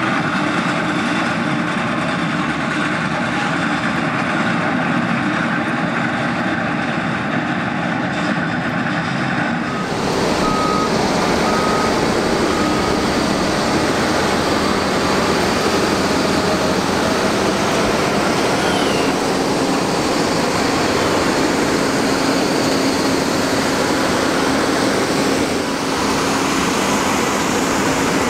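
Liebherr articulated dump trucks driving on a concrete test track, with steady diesel engine and tyre noise. About ten seconds in the sound changes abruptly, becoming a little louder and deeper as a prototype truck drives close by.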